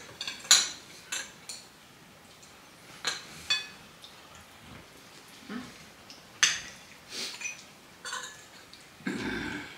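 Cutlery clinking and scraping against plates during a meal: irregular sharp clinks with brief ringing, a few seconds apart or in quick pairs.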